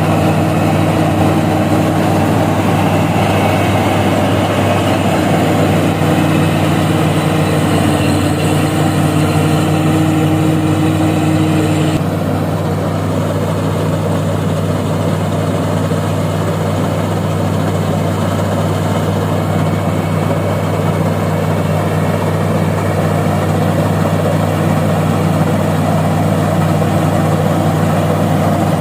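ACT 60 combine harvester's diesel engine running steadily as it cuts and threshes rice paddy, a continuous low engine hum. About twelve seconds in the sound shifts abruptly and becomes slightly quieter.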